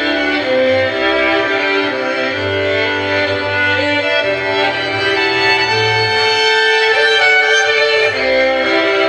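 Slow instrumental music in long held notes over a low bass line that shifts every second or so, with a bowed-string sound.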